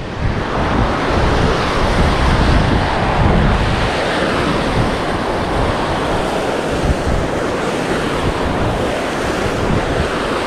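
Steady rush of turbulent water churning at the foot of a concrete dam wall, with wind buffeting the microphone.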